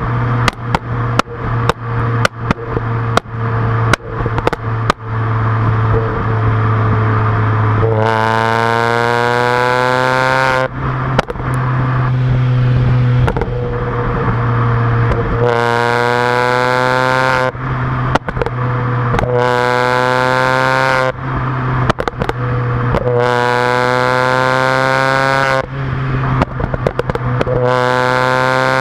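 Modded Mini Cooper S's supercharged four-cylinder exhaust, heard close to the tailpipe: first a fast run of sharp pops and crackles, then several pulls where the engine note climbs steadily. Each pull breaks off into more pops and bangs as the throttle is lifted. The popping comes from a new engine tune that lights fuel in the exhaust, sending flames out the back.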